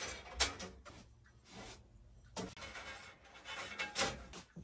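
Handling noise from fitting a blade onto a Record Power bandsaw's upper wheel: the steel blade and wheel rubbing and scraping under the hands, with a few sharp knocks, the loudest about half a second in.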